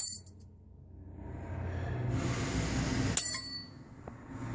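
Rustling handling noise, then a single sharp metallic clink with a short ring about three seconds in, as a small steel brake-hardware part or tool is set down.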